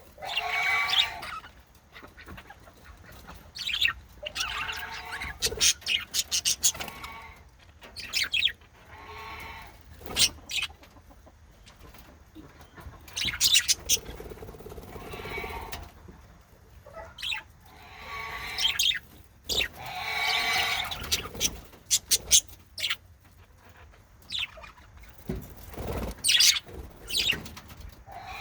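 Male budgies calling in short, pitched bursts of about a second each, repeated at irregular intervals throughout, with sharp clicks in between.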